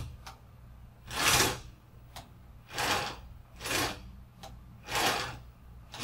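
Geared motor and VersaPlanetary gearbox driving a robot arm in short whirring bursts, five moves of about half a second each, with faint clicks between them. The arm is swinging back and forth and stopping at its travel limits.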